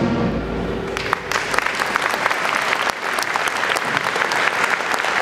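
Audience applause, rising out of a short lull about a second in and then carrying on steadily as a dense patter of hand claps.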